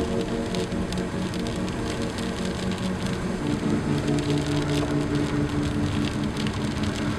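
Steady rain pattering, a hiss full of fine clicking drops, under soft background music of held chords that shift about three and a half seconds in.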